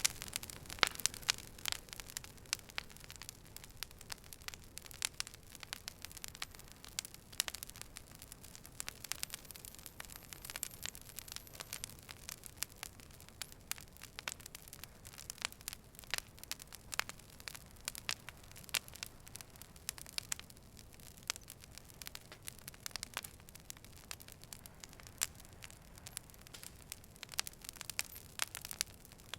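Fire burning, crackling with frequent irregular sharp pops and snaps over a soft steady hiss.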